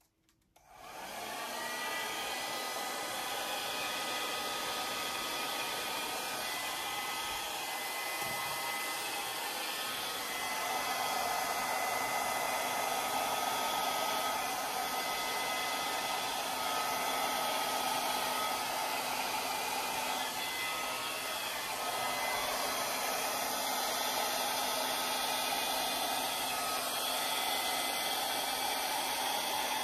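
Drew Barrymore Flower hand-held hair dryer switching on about half a second in and then running steadily, a rush of air with a thin steady whine over it.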